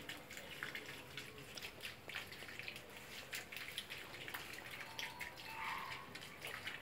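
Faint trickling and dripping of water running through a small home-made garden irrigation channel, with many small irregular drips.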